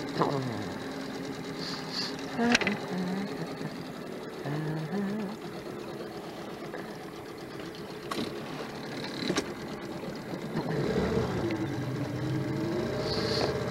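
Small outboard motor running steadily, its pitch dipping and rising again near the end, with a few sharp clicks over it.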